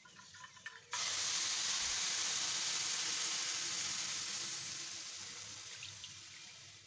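Milk poured into a hot frying pan, hissing and sizzling as it hits the hot metal. The hiss starts suddenly and loudly about a second in and slowly dies away, after a few light clicks at the start.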